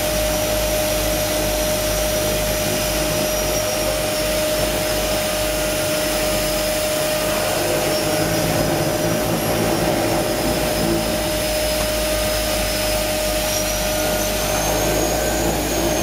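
Seaplane's propeller engine running at a steady drone with a constant tone while taxiing on the water after landing, heard from inside the cabin.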